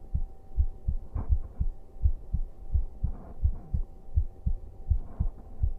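A man's heartbeat heard close up: steady, even low thumps about twice a second. Faint breathing comes in twice, over a thin steady hum.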